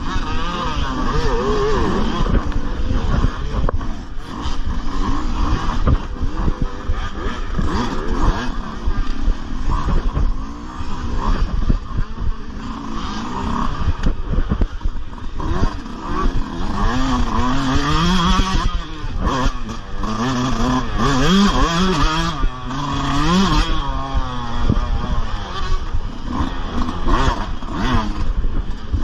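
Dirt bike engine heard from on board, revving up and down again and again at low speed, with other dirt bikes running close by.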